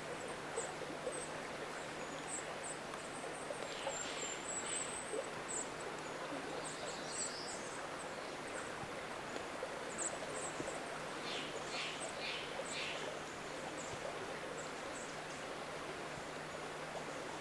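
Wet forest ambience: a steady hiss of rain with many short, high-pitched chirps of small songbirds scattered throughout, and a few lower calls about four seconds in and again around eleven to thirteen seconds.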